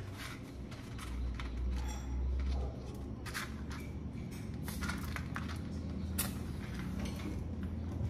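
Scattered small clicks and knocks of handling, with a low rumble for about a second and a half starting about a second in.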